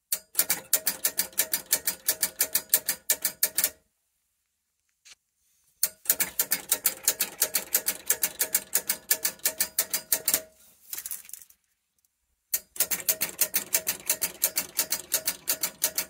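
Well pump pressure switch chattering: its contacts clatter open and shut in rapid runs of sharp clicks, several a second. The runs come three times, each lasting about four seconds, with short pauses between them.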